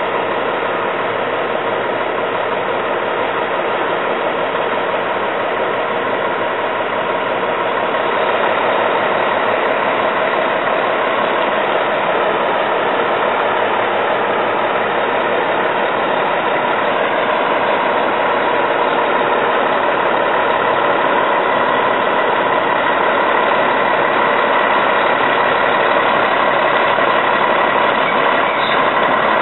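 Fire truck's diesel engine idling steadily, getting a little louder about eight seconds in.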